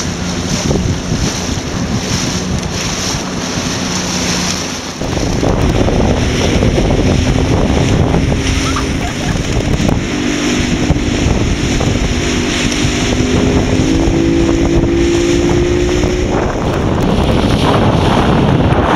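Strong wind buffeting the microphone over rushing, splashing water from a boat moving through choppy waves, with a faint steady motor-like hum underneath. About five seconds in the sound changes abruptly and gets louder.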